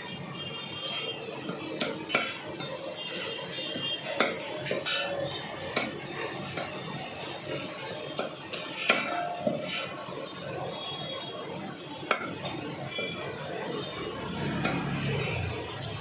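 Heavy cleaver chopping through dressed quail on a wooden chopping block: sharp single chops at irregular intervals, about one every second or two, over a steady background of clinks and clatter.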